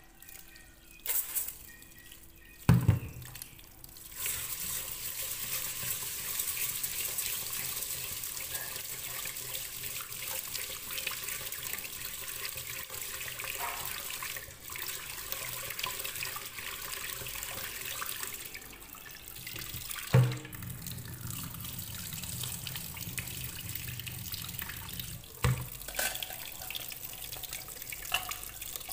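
Kitchen tap running into a rice cooker's inner pot in a stainless steel sink while rice is washed and stirred by hand, the water starting about four seconds in. A few sharp knocks sound over it, the loudest about twenty seconds in.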